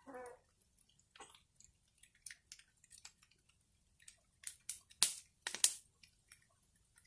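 Wood fire crackling: irregular small snaps and ticks, with two sharp, loud pops about five and five and a half seconds in. There is a brief squeak right at the start.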